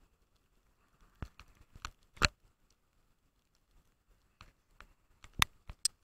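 Irregular sharp ticks and taps of wind-blown snow and ice pellets striking the camera, in two scattered clusters, the loudest about two seconds in and again near the end, over a faint hiss.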